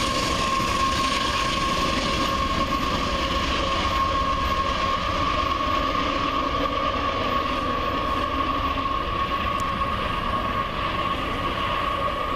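Canadian Pacific double-stack intermodal freight train passing: steady wheel-on-rail rolling noise with a constant high-pitched whine over it.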